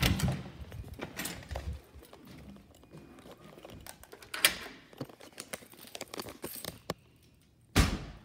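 Handling noise on entering a room: a scatter of clicks, knocks and rustles from keys, a door and the phone being carried, with a sharp knock about halfway and a louder thump near the end.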